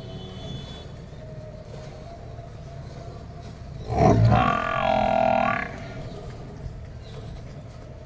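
Hand-milking of a water buffalo into a steel bucket, with milk streams hissing into the froth. About four seconds in, a single loud drawn-out call lasting about a second and a half cuts across it; it is most likely the buffalo bellowing.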